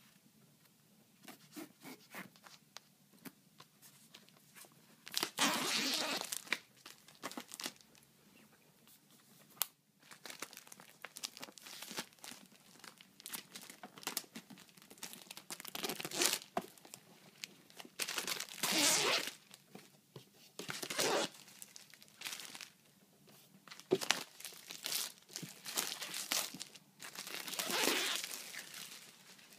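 Plastic shrink-wrap on a laptop box being slit with a fingernail and torn off by hand. Scattered small scratches and clicks are broken by several longer crinkling tears.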